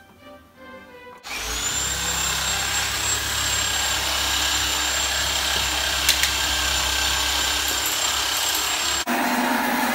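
Kitchen appliance noise from the induction hob and the pressure cooker on it: a loud steady hiss with a high whine over a low hum. It cuts in abruptly about a second in, with one sharp click midway, and changes abruptly near the end.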